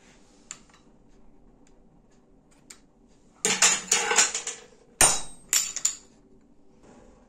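Metal clanking and knocking in a workshop. A quick cluster of several sharp strikes comes about three and a half seconds in, then two sharper clanks about a second later, the first ringing briefly.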